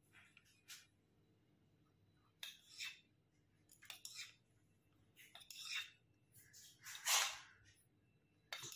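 Faint, short scrapes and light clinks of a steel spoon against a small steel bowl as sweet tamarind chutney is scooped out and dabbed onto the puris, coming every second or two, the loudest about seven seconds in.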